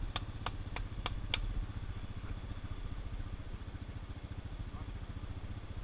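ATV engine idling steadily, with a few sharp clicks in the first second and a half.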